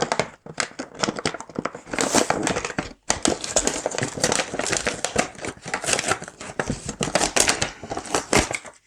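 Toy packaging being opened by hand: crinkling and rustling with many irregular small clicks and snaps.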